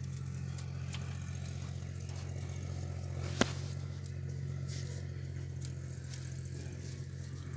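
Sonalika DI-35 tractor's diesel engine idling steadily, with a single sharp click about three and a half seconds in.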